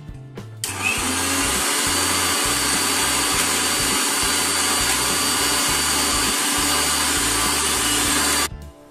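Electric mixer grinder with a stainless steel jar running, grinding basil leaves, cashews and oil into a paste. The motor starts up suddenly about a second in, runs steadily, and cuts off just before the end.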